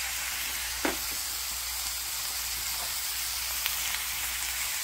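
Pork belly sizzling on a hot granite stone slab: a steady hiss of fat frying.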